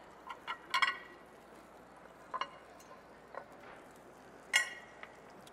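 Plates and utensils clinking and knocking on a countertop as food is plated: a few scattered clinks, the loudest and most ringing one near the end.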